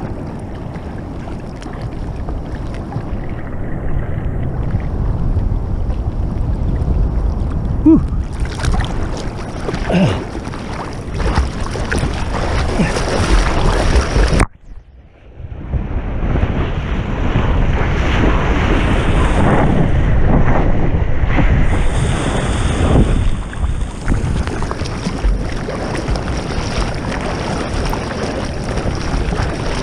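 Sea water splashing and rushing against a bodyboard and its board-mounted camera in the surf, with wind buffeting the microphone. The sound cuts out suddenly for about a second near the middle, then returns.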